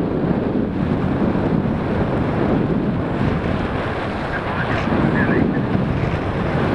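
Steady rush of wind buffeting the microphone of a camera carried by a paraglider pilot in flight; the sound is the airflow of gliding through the air.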